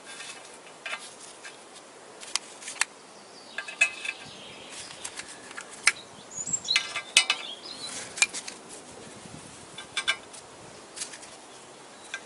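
Sharp metallic clinks and taps of steel bolts being set one by one into the bolt holes of a clutch pressure plate cover on the flywheel, scattered irregularly with a cluster of clinks around the middle.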